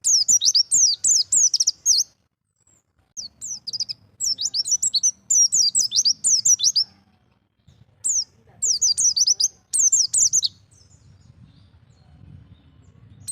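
A white-eye (pleci) singing in the wild 'ngalas' style: rapid phrases of high, quick down-slurred chirps, repeated in several bursts with short pauses between them. There is a longer gap near the end.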